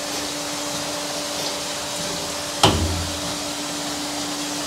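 Montana ski and snowboard grinding machine running with a steady whirring hum. A single sharp knock sounds about two and a half seconds in as the wet skis are handled.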